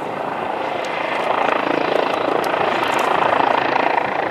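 Helicopter hovering overhead: a steady rotor and turbine noise that grows louder about a second in.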